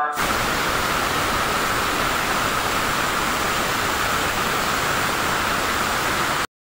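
Steam hissing steadily out of a pressure cooker's vent as the weight is held open with a spatula to let the pressure out. The hiss is loud and even, and cuts off suddenly near the end.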